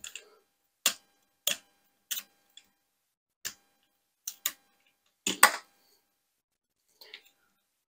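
Short, irregular clicks and taps of card and foam tape being handled, about eight in all, the loudest a little past five seconds in.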